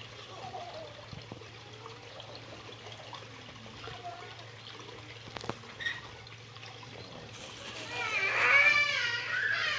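Faint, steady trickle of water, with one sharp click about five and a half seconds in. Near the end a high-pitched voice calls out, the loudest sound here.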